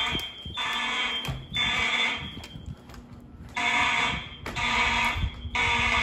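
Mechanical fire alarm horns (Siemens U-HN horn strobes) blaring in the temporal-three evacuation pattern: a group of three buzzing blasts, a pause of about a second and a half, then three more.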